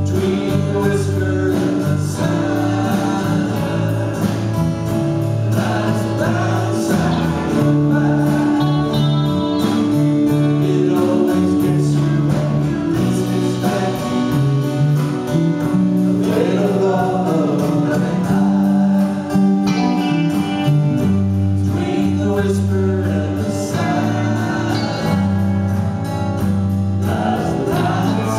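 Live band playing a song: electric and acoustic guitars, keyboard and drum kit, with a voice singing over them.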